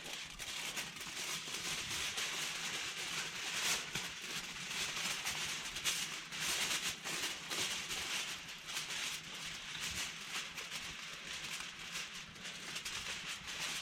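Aluminium foil crinkling and crackling as it is wrapped and pressed tight around logs, a continuous run of sharp crackles.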